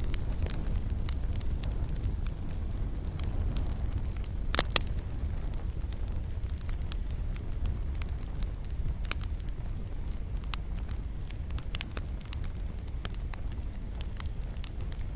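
Wood fire crackling in a fireplace: a steady low rumble of flames with irregular sharp pops and snaps, the loudest a quick cluster of pops about four and a half seconds in.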